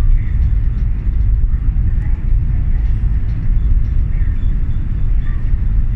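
Steady low rumble on the open deck of the ferry MV Armorique under way, the ship's machinery mixed with wind buffeting the microphone.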